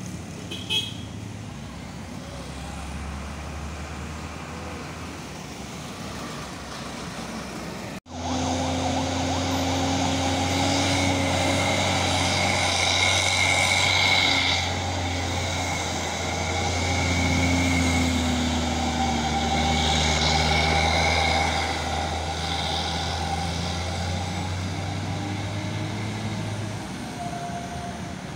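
Heavy trucks running through a hairpin bend, with a low engine rumble. After a sudden cut about eight seconds in comes a louder stretch: a steady low engine hum with held higher tones that shift in pitch now and then.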